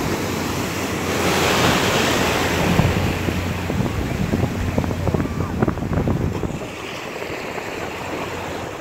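Shallow sea water washing and splashing, with wind buffeting the microphone. It is loudest for the first few seconds and eases off about two-thirds of the way through.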